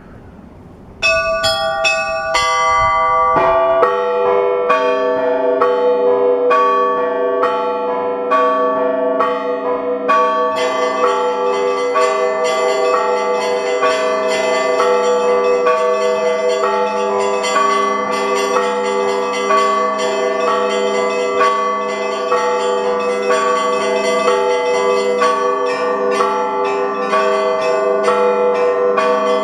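Russian Orthodox monastery bells ringing a full peal. About a second in, the small high bells start striking rapidly, and a few seconds later the larger bells join with deeper, sustained tones under the quick chiming.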